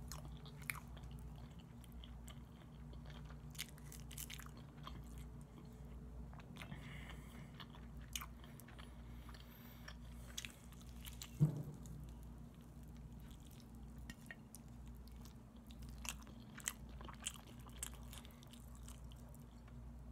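A person chewing and biting barbecued chicken off the bone close to the microphone, with many small wet clicks and smacks over a steady low hum. A single louder bump comes about eleven seconds in.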